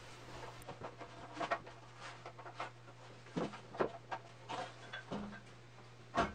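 Glued 2x4 lumber being handled and set against a steel basement support post: a scattering of light wooden knocks and rubs, with a sharper knock near the end, over a steady low hum.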